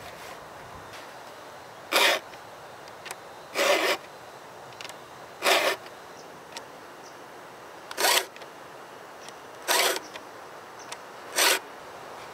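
Hand file in a filing guide being pushed across the cutters of a Husqvarna chainsaw chain: six short rasping strokes, about two seconds apart.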